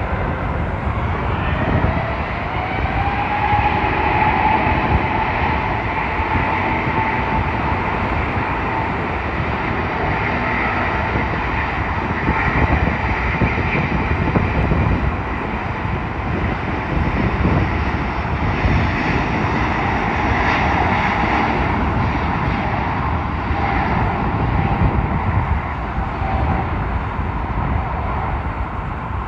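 Jet airliner landing, its engines loud and steady with a whining tone that rises in pitch over the first few seconds and then holds.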